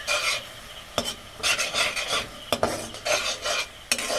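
Metal spatula stirring and scraping roselle leaves frying in oil in a steel kadai, with a light sizzle. The spatula knocks sharply against the pan three times between strokes. The leaves are being fried until they soften.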